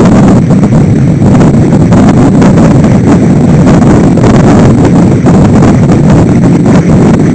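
Heavy, unbroken wind buffeting on the microphone of a camera at the stern of a Thames A rater sailing under way, with water rushing past the hull.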